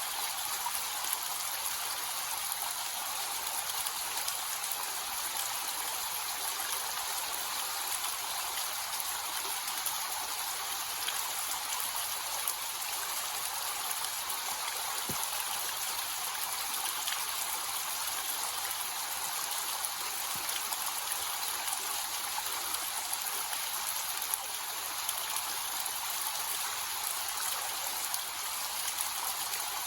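Small waterfall with a light, reduced flow: a steady rush and splash of falling water, even throughout and mostly high in pitch with little low rumble.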